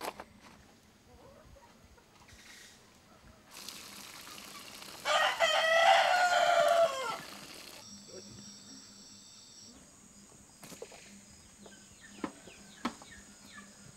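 A rooster crowing once, about two seconds long and falling in pitch at the end, around the middle; it is the loudest sound. Under it, water pours and splashes out of a large metal pot, and a few light knocks follow near the end.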